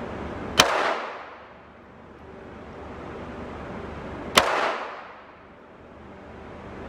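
Two pistol shots fired on a range, nearly four seconds apart, each a sharp crack followed by a short echo.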